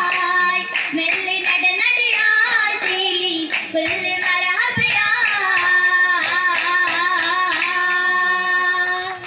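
Girls singing an Oppana song in chorus, with the dancers' hand claps keeping a steady beat. The song closes on a long held note in the last three seconds.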